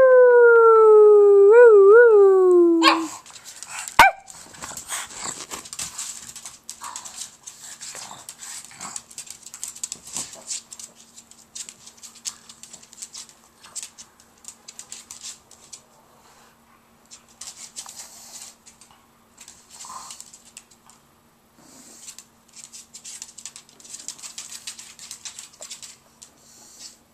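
A pug gives one long howl that slides down in pitch, with a brief wobble near its end, and breaks off about three seconds in. After a sharp click, there is only light scuffling, rustling and clicking of dogs moving about.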